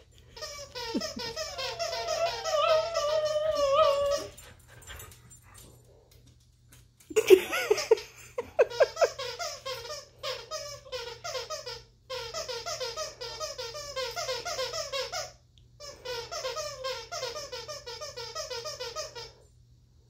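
Plush squeaky dog toy being chewed by a small dog, letting out rapid strings of short, high chirping squeaks, about five a second, in several runs with pauses between them.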